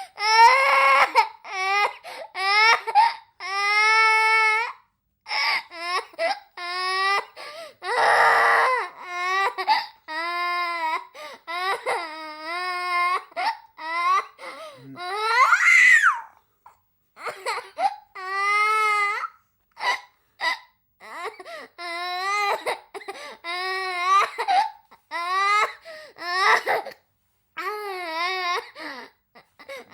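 A young child crying and sobbing: a run of short, high-pitched wailing cries whose pitch wavers up and down, broken by quick breaths. A couple of the cries are harsher and more strained, about eight seconds in and again near the middle.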